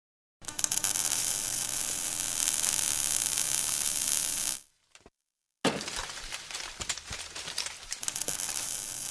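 Sound effects for an animated logo intro: about four seconds of loud, hissing, crackling noise, then a short gap. After the gap comes a sudden hit, followed by crackling with many small clicks.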